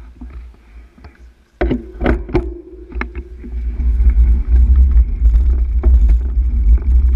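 A few sharp clicks and knocks, then a loud, steady low rumble of wind and road vibration on a bike-mounted camera's microphone as the road bicycle gets rolling.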